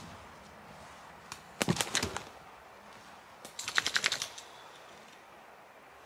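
Dry wood cracking and knocking as it is handled: a quick run of sharp knocks about a second and a half in, then a denser run of clattering cracks around four seconds in.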